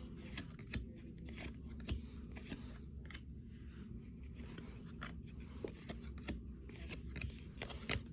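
Baseball trading cards handled and flipped through by hand: faint, scattered soft clicks and rubs of card edges, a few a second, over a low steady hum.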